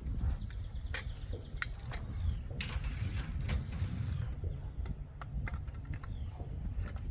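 Uneven low rumble of wind on the microphone, with scattered sharp clicks and light clanks of handling gear around the clamped metal siding panels.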